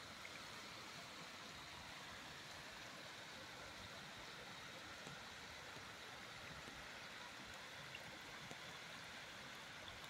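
Shallow water running over low stone steps, a faint, steady rushing.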